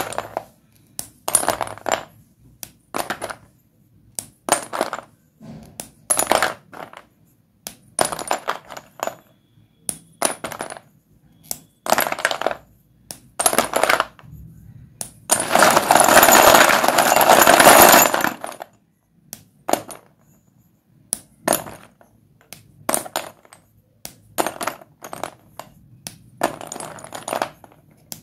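White dustless chalk sticks breaking and crumbling: short crisp crunches about once a second, with one longer run of dense, continuous crunching lasting about three seconds past the middle.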